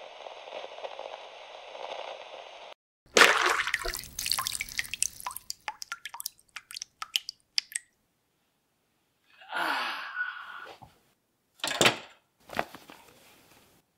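A steady hiss cuts off about three seconds in. Then liquid splashes in suddenly and trails off into a run of drips that thins out over the next few seconds. Later come a brief rustle and two short knocks.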